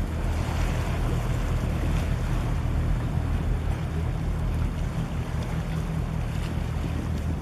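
Low, steady engine drone from a container ship and its harbour tug, mixed with wind buffeting the microphone and the wash of waves.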